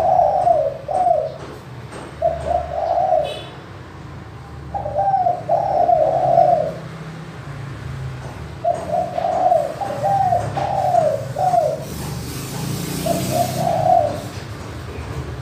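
Caged spotted dove cooing: a clear coo phrase repeated about five times, with pauses of a second or two between phrases.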